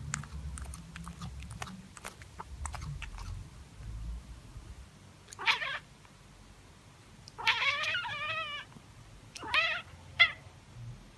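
A tabby cat meowing four times in the second half: a short call, then a longer call with a wavering pitch, then two short calls. Before that there is only a low rumble with faint clicks.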